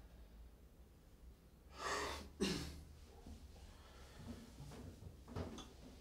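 A man breathing heavily and sighing, with two loud breaths close together about two seconds in and another near the end, over a low room hum.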